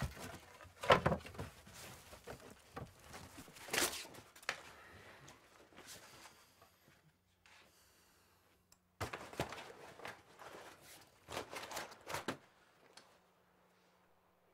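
Belongings being rummaged through in a search: books, papers and cloth handled and shifted, with a run of knocks and thuds in the first few seconds, the loudest about a second in. After a short near-silent gap there is more rustling and handling, which stops a couple of seconds before the end.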